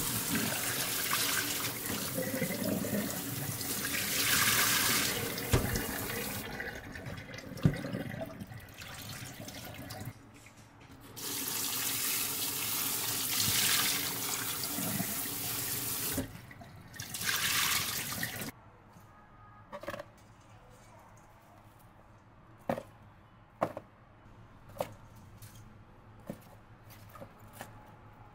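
Tap water running into a sink in three spells, the first two several seconds long and the last brief, followed by a few light knocks.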